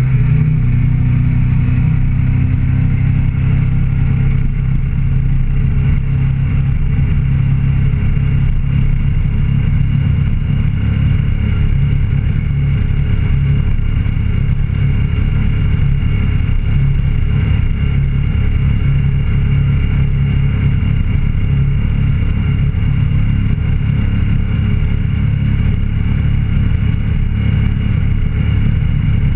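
Motorcycle engine running steadily at an even cruising speed, heard from the bike itself.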